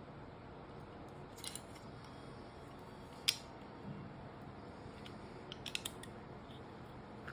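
Light, sharp clicks and clacks of small hard parts being handled, against a low room hiss. There is a pair about a second and a half in, a single louder click a little after three seconds, and a quick run of four or five clicks near six seconds.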